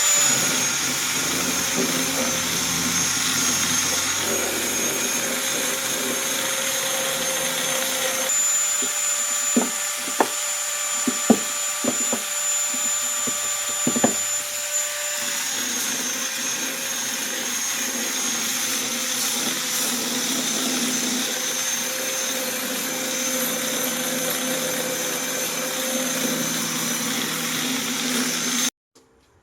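An electric power tool running steadily with a high whine, its pitch shifting a little a few times, with several sharp knocks in the middle; it stops abruptly just before the end.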